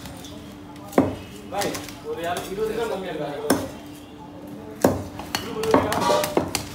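Large knife cutting a whole Asian sea bass on a steel table, with three sharp knocks of the blade about one, three and a half, and five seconds in, and lighter scraping and clatter between them.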